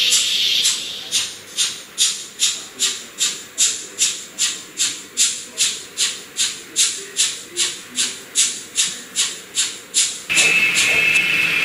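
N-scale model steam locomotive's sound decoder playing steady exhaust chuffs through its small speaker, about two a second, as the engine pulls away. The chuffs stop near the end and a steady hiss with a low hum takes over.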